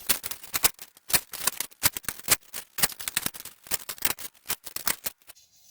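Sped-up clicking and clatter of metal bicycle spokes being threaded through the hub and rim while a wheel is laced: a rapid run of light clicks that stops shortly before the end.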